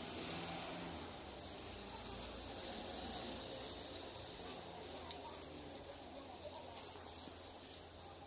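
Faint background ambience: short clusters of high chirps come and go several times over a steady low hum.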